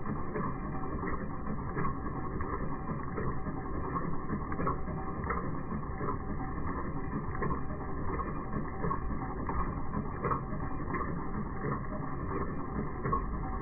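2006 Mercedes-Benz Sprinter running, with a repeated ticking over the steady engine noise.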